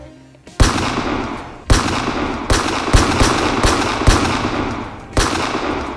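Gunfire: a string of about eight shots at irregular spacing, with a steady rushing noise between them, starting about half a second in and tailing off near the end.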